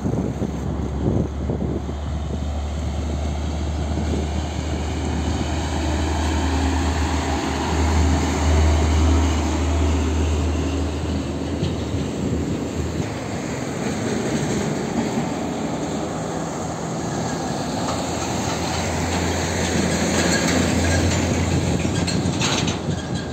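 Heavy diesel trucks passing close by: a deep, steady engine rumble with tyre and road noise, swelling twice as trucks go past.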